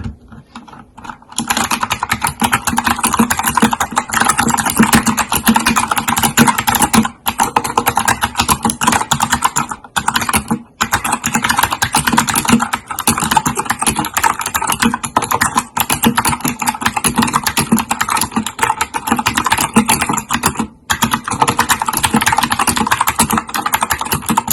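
Fast continuous typing on a Keychron K2 mechanical keyboard with clicky blue switches, a dense run of loud key clicks that starts about a second in, with a few short pauses.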